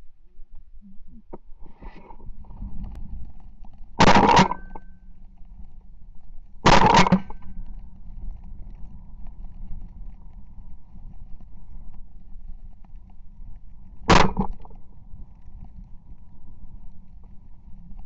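Three shotgun shots at low-flying Canada geese: two about two and a half seconds apart, then a third about seven seconds later, each with a short echo.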